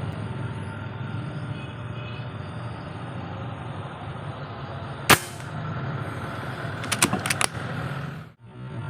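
A single sharp shot from a .177 PCP air rifle about five seconds in, the loudest sound here, over steady background noise. A quick run of about four clicks or knocks follows a couple of seconds later, just before the sound briefly cuts out.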